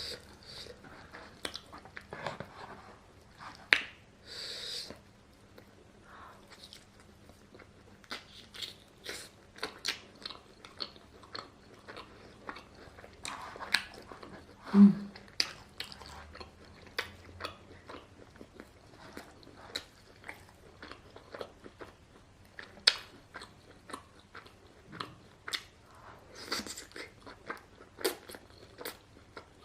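A person biting and chewing food close to the microphone, with frequent irregular wet smacks and crunchy clicks. About halfway through there is a brief low hum-like sound, the loudest moment.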